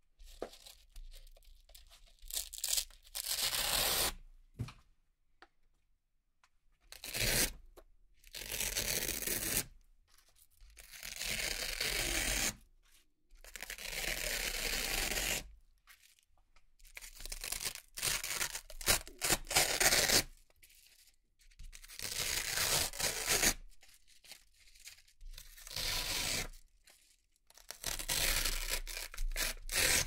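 Hook-and-loop (Velcro) strips and discs being peeled off a board one after another: about ten crisp tearing rips, each a second or two long, with short pauses between.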